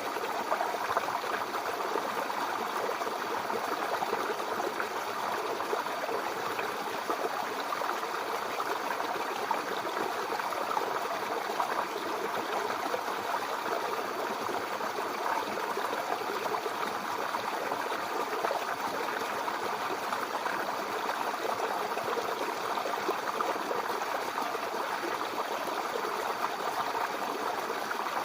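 A small brook babbling and trickling steadily over stones.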